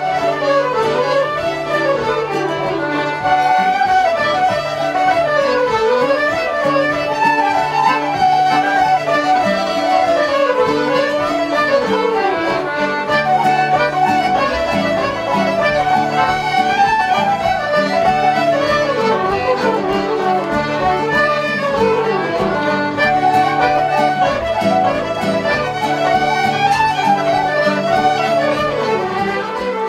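Irish traditional session music: fiddles and a flute playing a fast running tune in unison with a button box, over steady low accompanying notes.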